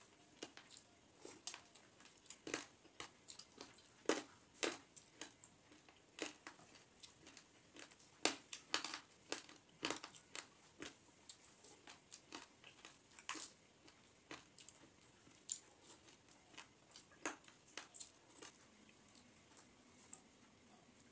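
Close-miked eating: irregular chewing, crunching and mouth clicks as a man eats rice and fried food by hand, with his fingers working rice on a metal plate.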